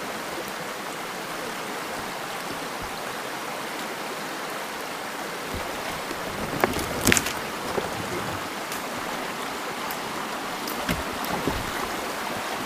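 Steady rush of creek water mixed with falling rain. A few sharp knocks land about seven seconds in, the loudest sounds, with fainter clicks later on.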